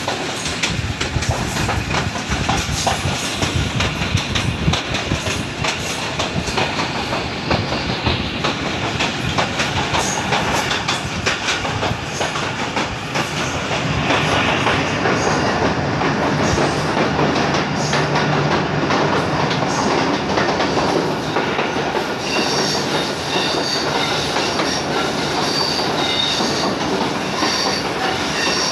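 Passenger express train running at speed, heard from a coach window: wheels clattering over the rail joints. About halfway through the noise grows louder and fuller as the train runs into a tunnel, and in the last several seconds the wheels squeal again and again.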